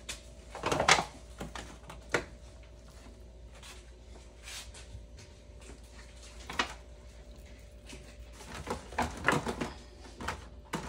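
Scattered knocks and clatters of kitchenware being handled, loudest about a second in, with a quick run of them near the end. A faint steady hum underneath stops about eight seconds in.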